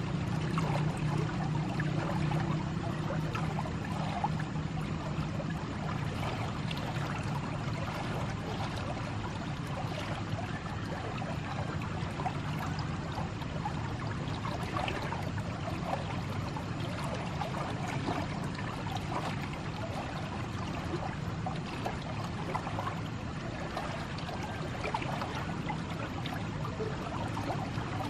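Fast water flowing down a narrow stone-lined irrigation canal, a steady churning rush.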